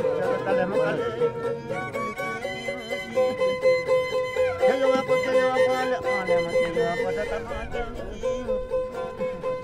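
Violin music: a steady held drone note under a melody of short stepped notes.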